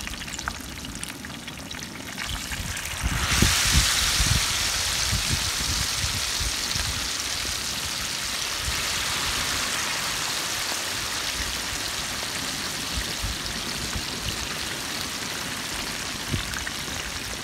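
Marinated chicken pieces deep-frying in a large pot of hot oil: a steady bubbling sizzle. About three seconds in, the sizzle grows suddenly louder and hissier as more pieces go into the oil.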